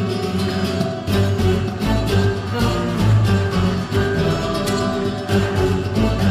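Pasodoble music playing, loud and continuous, with percussive accents throughout.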